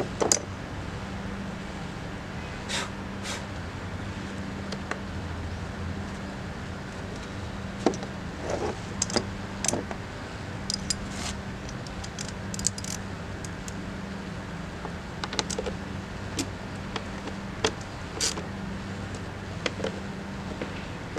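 Scattered clicks, taps and knocks of hands handling parts of a car, over a steady low hum.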